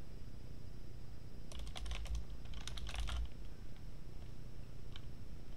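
Computer keyboard typing: a rapid run of keystrokes for about two seconds from a second and a half in, then a single keystroke near the end.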